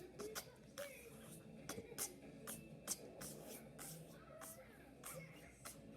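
Beatboxed hi-hat done with the mouth: short, quiet, hissy 'ts' strikes, about two to three a second in a loose rhythm.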